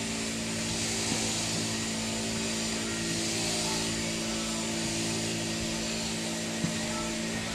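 Sheep-shearing machine running steadily, a hum with a broad hiss over it, with a faint click about a second in and a sharper one near the end.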